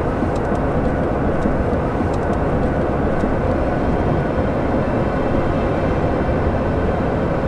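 Steady road and engine noise heard inside the cab of a Ford F-150 pickup driving on a snowy road.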